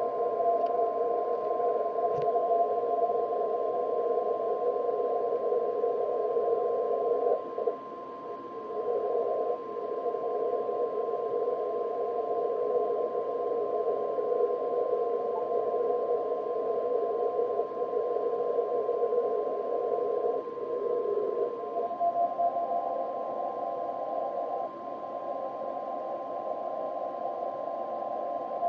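Shortwave receiver audio from an Elecraft K3 transceiver on the 10-metre band: band-noise hiss squeezed through a narrow receive filter, with a steady high tone running through it. The hiss dips and changes character twice, a few seconds in and again past the middle, as the filter and noise-reduction settings are changed.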